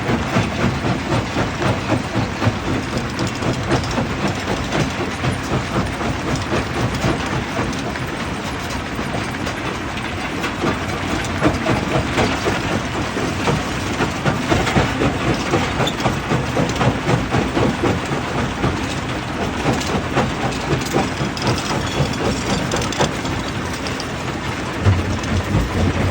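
Rock tumbling and clattering as a truck unloads at a rock crusher: a dense, continuous rattle of many small impacts over a low mechanical rumble, with a heavier thump near the end.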